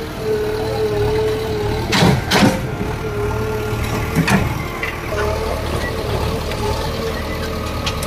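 JCB backhoe loader's diesel engine running steadily under a held whine, with a few loud knocks about two seconds in and again just after four seconds as it works against brickwork.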